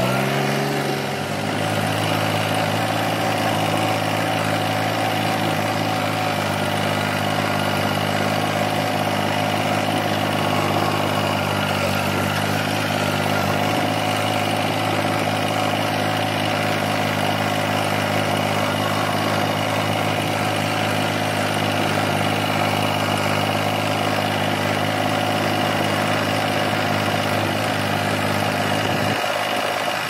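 Diesel engine of a blue New Holland tractor running steadily as it drives along a field track, heard from the driver's seat. The deep low hum drops away near the end.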